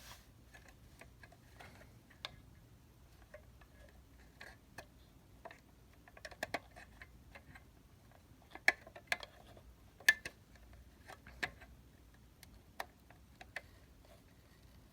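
Irregular light clicks and taps, a few at a time, with the loudest ones a little past the middle, over a faint low room hum.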